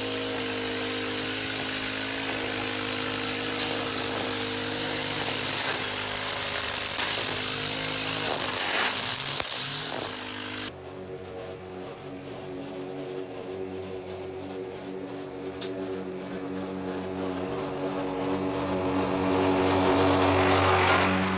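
Toro Recycler walk-behind mower's small engine running steadily while mowing, with the grinding its bad transmission makes. About halfway through, the loud hiss of cutting stops abruptly, leaving the engine running on its own, and it grows louder near the end.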